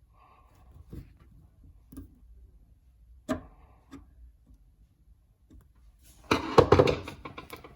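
Scattered clicks and knocks of hands and tools working under a basin, then a loud rattling clatter about six seconds in, while the hot and cold isolation valves feeding a monoblock tap are turned off.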